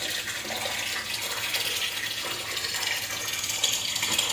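Steady running water, an even, continuous splashing hiss.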